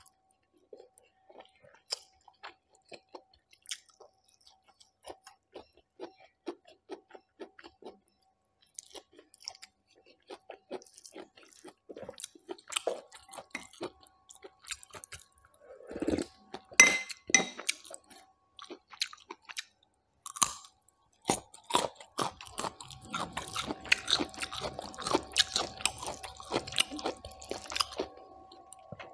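Close-miked chewing and wet mouth sounds of someone eating curry and rice by hand. Soft clicks at first, then louder, denser crunching bites in the second half.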